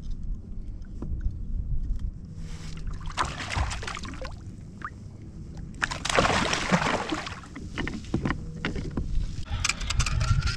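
A hooked fish thrashing and splashing at the water's surface beside a kayak, in two bursts of splashing, about three seconds in and again at about six seconds, over a steady low rumble.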